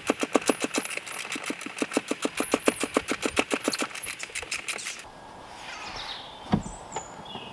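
Hand socket ratchet clicking rapidly, about eight clicks a second, as it turns a seat-mount bolt by hand in place of an impact gun. The clicking stops about five seconds in, and a single knock follows.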